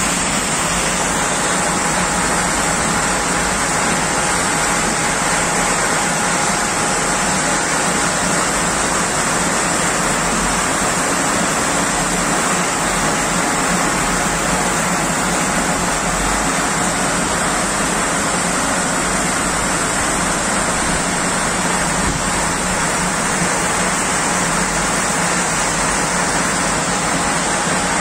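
Washed salt pouring off a belt conveyor into a ship's steel cargo hold, with the conveyor machinery running: a steady rushing noise with a faint constant hum.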